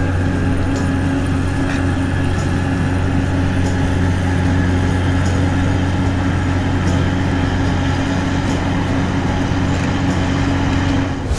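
A vehicle's engine running steadily: a constant low hum with a rumbling noise over it, starting and stopping abruptly.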